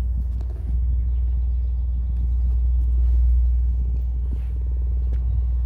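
DS18 Elite Z-15 15-inch subwoofer playing a 20 Hz test tone in free air, a loud, steady deep drone with a rough buzz over it as the cone makes long excursions.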